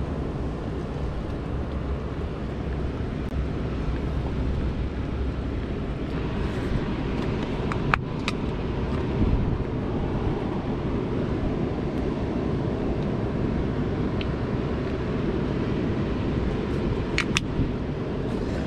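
Steady low outdoor rumble, with a few sharp clicks from handling kitchen tongs and a plastic mayonnaise squeeze bottle: one about halfway through and two close together near the end.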